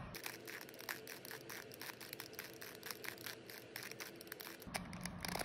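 A 3x3 Rubik's cube having its layers turned over and over: faint, quick plastic clicks and scrapes as the layers are repeatedly twisted.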